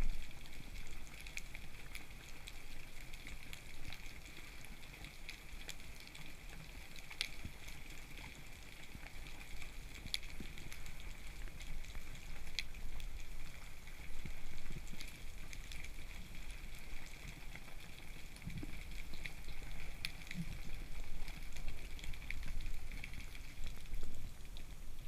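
Underwater ambience: a steady crackle of fine clicks and pops over a low rumble, as picked up underwater during a breath-hold spearfishing dive.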